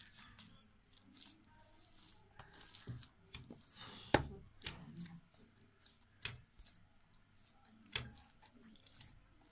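Puri dough being kneaded by hand in a steel plate: soft squishing and tearing of the dough with a few scattered thumps as it is pressed and pushed against the metal, the loudest about four seconds in.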